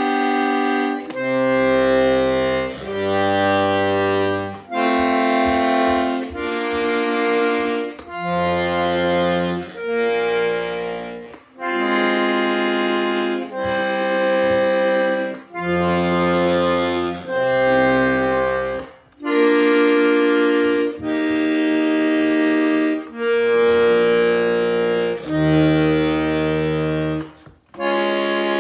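Hohner Corona III three-row diatonic accordion in BbEbAb tuning, its bass side played button by button as a sound check. Bass notes and chords sound one after another, each held for about one to two seconds with short breaks between.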